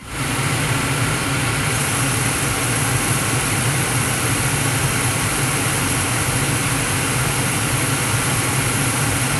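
Gas furnace in-shot burners firing: a steady rushing noise of the flames with a low hum underneath.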